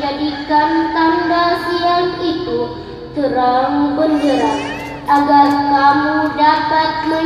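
A child chanting Qur'an recitation (tilawah) in long, ornamented melodic phrases, with a short breath break about three seconds in.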